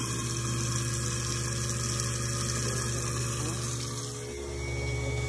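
Tap water running into the sink while the newly installed half-horsepower Moen garbage disposal runs with a steady low hum, as the new unit is tested for leaks. The hum dips briefly about four seconds in.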